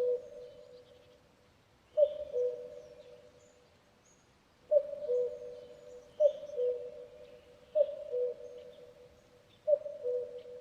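Common cuckoo calling its two-note "cu-ckoo", a higher note dropping to a lower one, repeated about six times at intervals of roughly one and a half to two and a half seconds. Each call trails off in an echo, and faint chirps of other small birds sit behind it.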